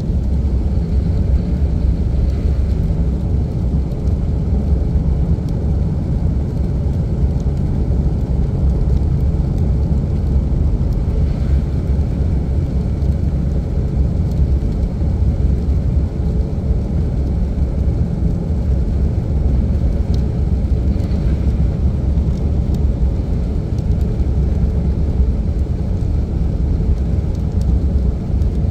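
Steady low rumble of a vehicle on the move, heard from inside the cabin.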